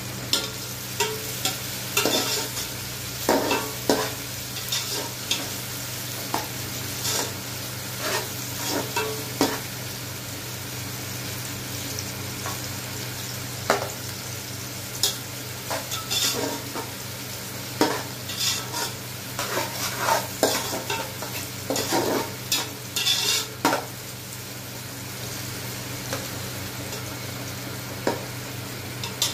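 Sliced onions sizzling in oil in a large aluminium pot. A wooden spatula stirs them, scraping and knocking against the pot at irregular moments, less often near the end, over a steady low hum.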